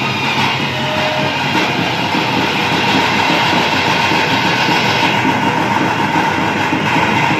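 Loud, fast, unbroken drumming from a temple festival percussion ensemble, with a steady high held tone running through it.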